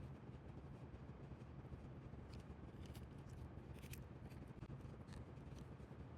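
Faint, scattered small clicks and scrapes of hand tools working on a diecast toy car during a wheel swap, over a low steady hum.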